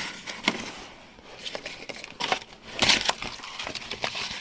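Rolled-up cardboard being pushed into the gaps between logs in a wood stove's firebox: scattered crinkling and scraping, with a louder crunch about three seconds in.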